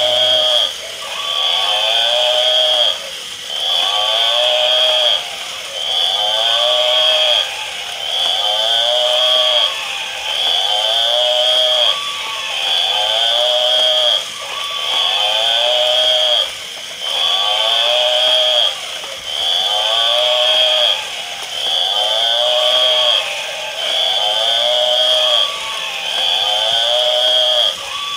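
Electronic animal-call sound effect from battery-operated toy animals, looping about every two seconds. Each repeat is a call that rises and falls in pitch over a steady high tone, and both stop briefly between repeats.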